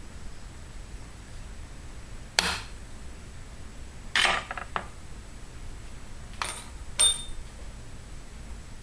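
Metal tools being picked up and set down on a work table: about five sharp clinks, one a short clatter about four seconds in, and the last ringing briefly.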